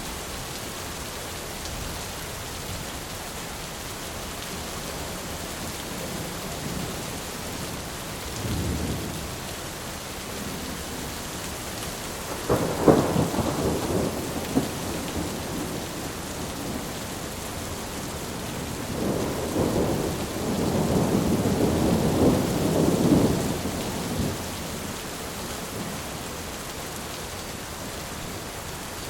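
Steady rain with thunder: a faint low rumble about nine seconds in, a loud crackling peal about twelve seconds in, and a longer rolling rumble from about nineteen to twenty-four seconds.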